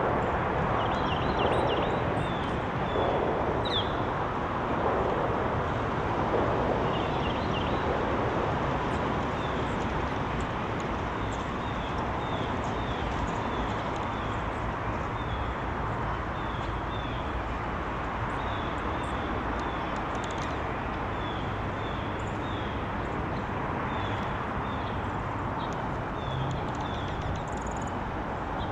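Small birds chirping over and over in short, high calls, over a steady background rumble.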